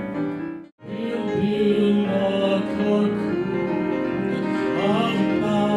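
Solo piano accompaniment to cabaret singing. It cuts out to silence for a moment about three-quarters of a second in, then resumes with the opening of the next song.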